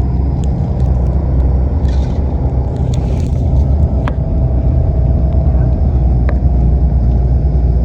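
Steady low rumble of a bus's engine and tyres on the road, heard from inside the passenger cabin, with a couple of faint clicks.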